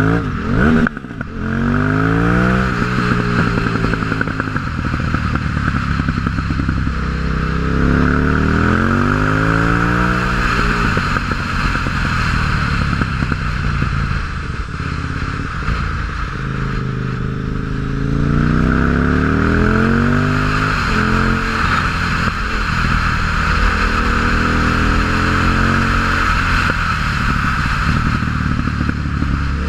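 2006 KTM 950 Supermoto's V-twin running through a MIVV exhaust with no dB-killers, revving up and dropping back again and again as the bike accelerates and shifts on the move.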